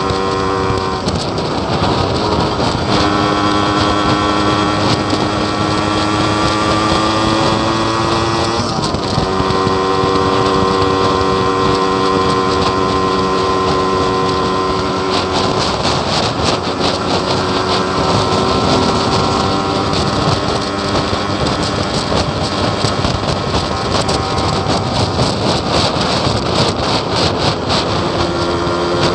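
Yamaha RX King's 135 cc two-stroke single-cylinder engine pulling under way, its pitch climbing slowly in each gear and dropping back at shifts about one, three and nine seconds in, with wind noise on the microphone. The owner finds the bike badly sluggish and down on power.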